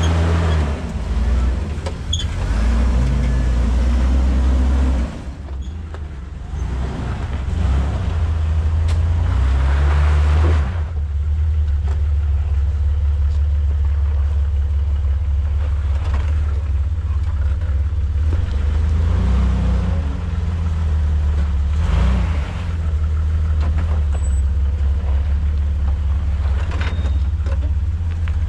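Jeep Wrangler engine running steadily at low revs, with a few brief rises in noise as it works over the trail.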